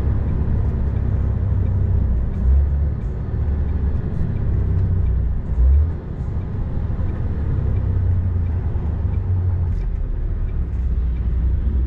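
Steady low rumble of a semi-truck's engine and tyres, heard inside the cab while driving. It swells briefly twice, about two and a half and about six seconds in.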